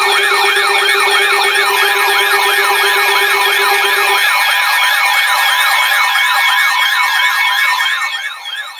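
Siren-style alert tones: several fast rising-and-falling yelps layered over steady held tones. A low steady tone cuts out about four seconds in, and the sound drops in level near the end.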